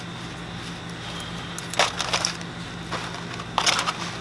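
Aluminium foil and plastic food film crinkling as the wrap around the meat is cut and pulled open by hand, in two short crackly bursts about two seconds in and near the end, over a steady low hum.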